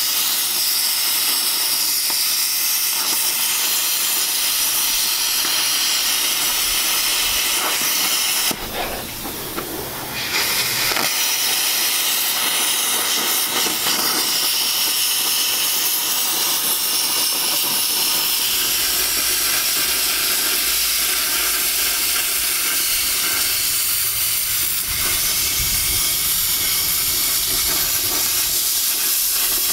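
Plasma cutter hissing steadily as it cuts through the rusted steel of an old truck; the hiss drops away for about two seconds roughly a third of the way in, then resumes.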